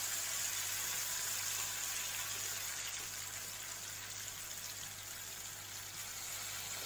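Chana dal vadas deep-frying in hot oil in a kadai: a steady sizzle.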